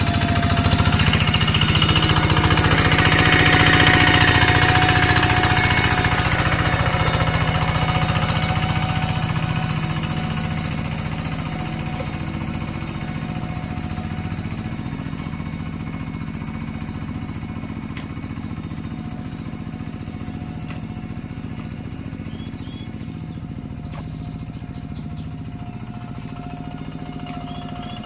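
Paddy-field tractor engine running flat out at full throttle with a steady chugging note, loudest over the first several seconds and then a little fainter.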